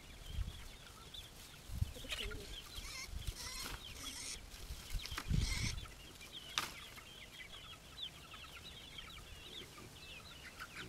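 A flock of chickens clucking and calling, many short high calls one after another, with a few louder rustles and knocks in the first seven seconds.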